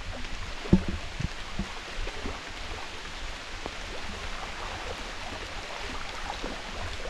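Wet rainforest ambience: a steady hiss of water or rain, with a few dull knocks in the first two seconds or so, the first the loudest.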